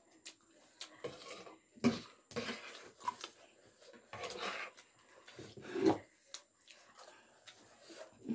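Spoons clinking against plates on a table, a scatter of light clicks. There are a few short, louder noisy bursts about two, four and six seconds in.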